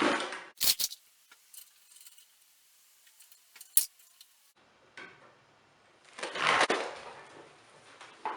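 Small hardware being handled while an electrical receptacle is fitted to its device box: a few sharp clicks and knocks of metal and plastic, then a longer rustling scrape about six seconds in.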